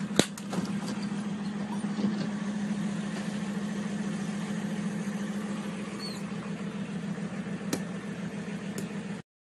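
Van engine running, heard from inside the cab: a steady low hum, with a sharp click just after the start and another near the end.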